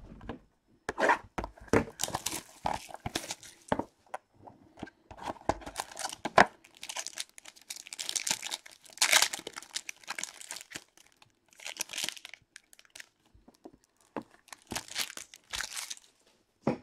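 Plastic shrink-wrap on a sealed trading-card box being slit, torn off and crinkled by hand: a run of irregular crackles and tearing sounds in clusters.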